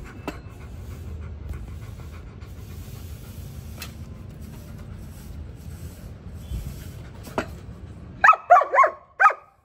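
German Shepherd giving a quick run of short, high-pitched yelps about eight seconds in, over a steady low rumble with a few faint clicks.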